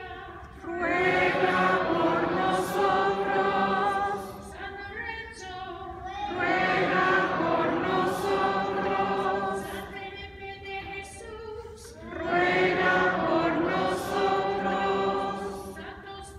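Church congregation and clergy singing a short sung response in unison, three times. Each response answers a single voice singing alone in the quieter gaps between, a call and response.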